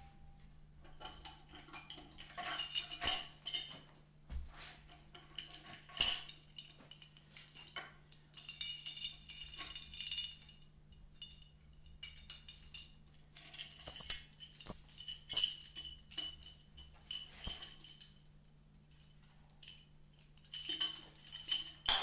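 Steel lift-hoist chain and hooks clinking and rattling in irregular bursts as they are handled and taken off the log, over a faint steady low hum.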